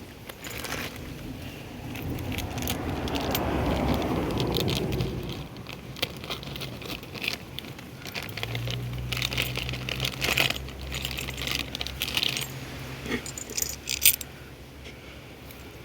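Plastic parts and packaging of a dual-flush toilet valve being handled. There is rustling and crinkling at first, then scattered clicks and small knocks, with a sharp knock near the end and a low hum partway through.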